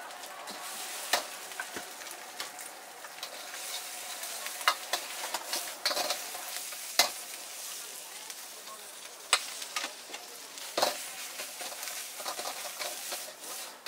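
Egg fried rice and greens stir-frying in a wok over a gas burner: a steady sizzle, with a metal ladle scraping the wok and striking it in sharp clanks every couple of seconds.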